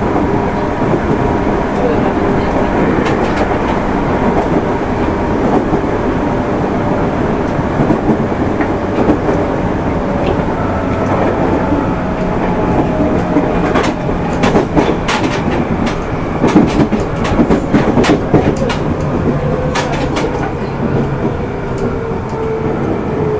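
Running noise of a JR 205 series 600-subseries electric train heard from inside the passenger car: steady rumble with a sustained tone that slowly falls in pitch near the end. A run of sharp clicks comes around the middle as the wheels pass over rail joints.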